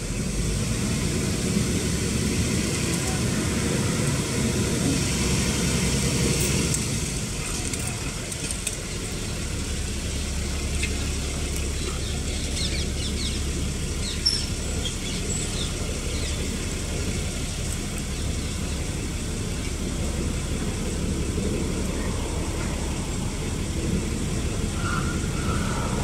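Steady outdoor background noise with a low rumble, and a few faint, short, high bird chirps a little before the middle. There is one sharp click at about the halfway point.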